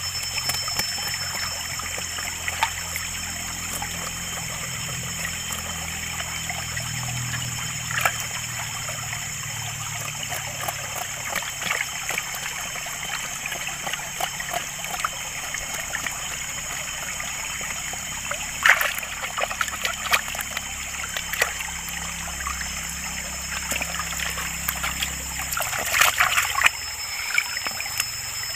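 Shallow stream trickling steadily over rocks, with scattered sharp clicks and small splashes as a machete trims bamboo shoots in the water; the clicks come more often near the end.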